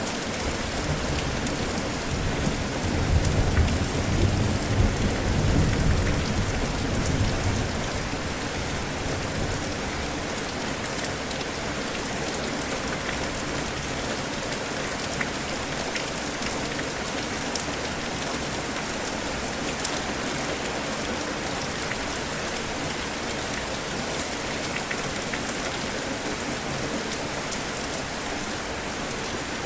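Steady heavy rain falling, with a deep rumble of thunder rolling in about three seconds in and fading out by about eight seconds.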